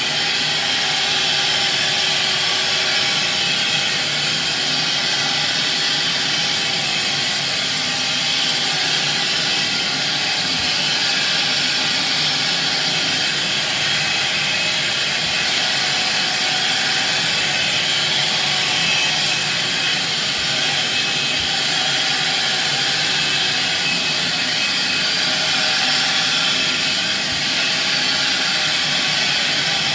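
Ridgid 16-gallon, 6.25 peak horsepower wet/dry shop vacuum running at full suction: a loud, steady whine and rush of air as its floor nozzle works over carpet.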